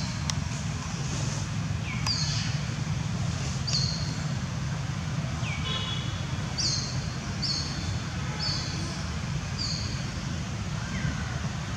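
Bird calls: short, high chirps that fall in pitch, repeated several times and coming about once a second in the second half, over a steady low background rumble.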